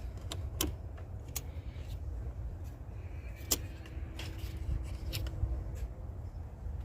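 Scattered sharp clicks and taps of plastic and metal parts being handled in a car's engine bay, over a steady low rumble.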